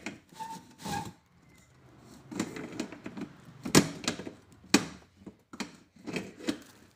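Pliers gripping and turning a nut against a metal chandelier frame and plate, making irregular clicks and knocks as the nut is tightened, the loudest a little over halfway through.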